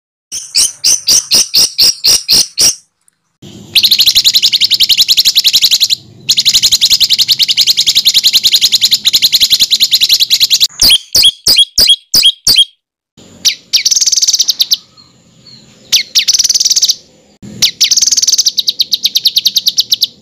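Songbird singing harsh, rapid-fire repeated notes ('tembakan kasar') in runs of a few seconds that start and stop abruptly, with short silent gaps between them. The longest, densest run is in the middle. This is masteran song used to train contest birds.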